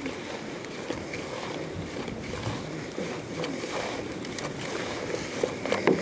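Fingers stirring and working crumbly bait mix in a plastic bowl, just wetted with water: a steady soft gritty rustle with small scrapes.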